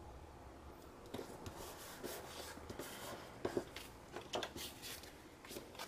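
Paper and card stock being handled: soft rubbing and rustling of card squares pressed down and slid on a tabletop, with light taps as pieces are picked up, starting about a second in.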